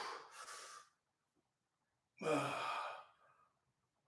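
A man's heavy breath out, then a long voiced sigh about two seconds in that falls in pitch, as he pushes up into a back stretch after hard core exercise.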